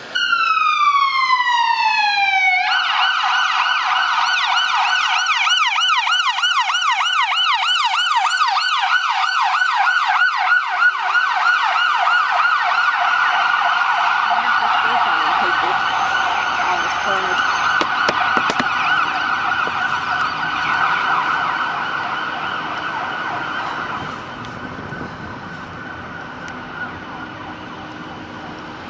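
Emergency vehicle siren: a falling wail at the start, then a fast yelp sweeping up and down several times a second, growing quieter about 24 seconds in.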